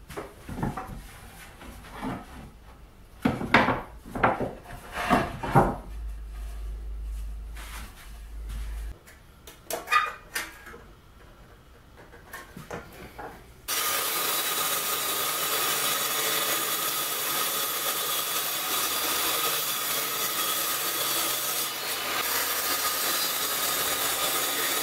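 Wooden boards knocking and scraping as they are handled, then a few light clicks. About halfway through, a benchtop table saw starts and runs steadily, cutting a kerf into a plywood board, with a constant whine over its noise.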